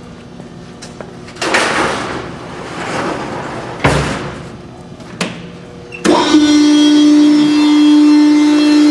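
A few metal clanks and a bang from the vertical baler, then about six seconds in its hydraulic power pack, driven by a 15 horsepower 480 volt three-phase electric motor, starts up and runs with a loud steady hum.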